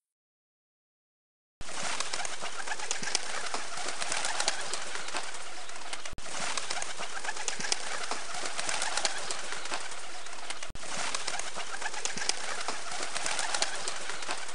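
Rock pigeons: a steady, dense bed of bird sound that starts after about a second and a half of silence and runs on with two very brief breaks.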